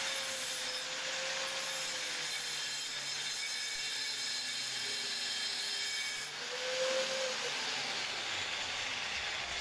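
Angle grinder grinding the edge of an old steel cleaver blade: a steady gritty rasp over the motor's whine. About six seconds in the grinding noise drops away for a moment and the whine rises briefly.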